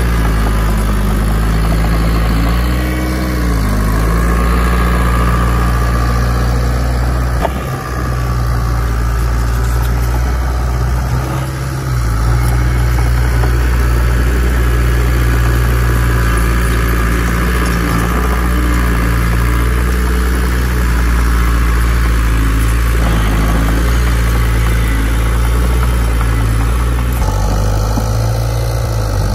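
Heavy earthmoving machine's diesel engine running steadily under work, with a brief rise and fall in engine pitch about three seconds in.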